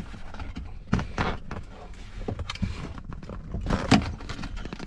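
Clicks and knocks of a Mercedes-Benz 190E's latches being worked as its bonnet is opened, with the loudest, sharp clack just before four seconds in.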